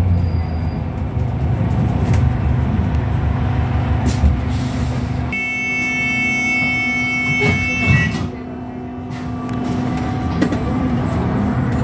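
Volvo B5LH diesel-electric hybrid bus driveline heard from inside the lower deck on the move. A heavy low drone drops away abruptly about five seconds in, and a steady high whine follows for about three seconds over a lower steady hum.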